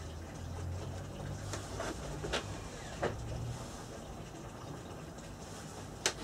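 A few light knocks and clicks of a steel rule and pencil being handled on a wooden board, the sharpest near the end, over a steady low hum.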